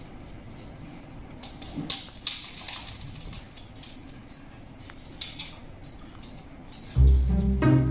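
Scattered light clicks and taps as a puppy walks about on a wooden floor beside a wire playpen, over quiet room noise. Near the end, music with plucked low strings starts suddenly.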